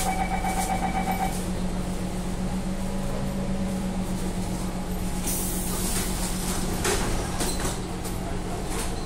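Siemens C651 metro train's doors closing: a rapid door-closing warning beep for about the first second and a half over the steady hum of the stationary train, then a loud hiss of about a second about five seconds in and knocks as the doors shut near seven seconds.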